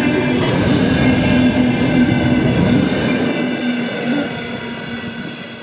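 Passenger train coaches rolling past close by at speed, steady wheel-on-rail rumble with a steady tone running through it. The sound fades from about three seconds in as the last coach goes by.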